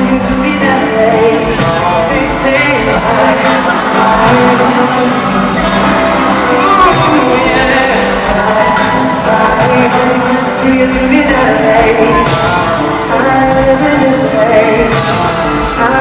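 Pop song played live by a band, with a male lead voice singing over it.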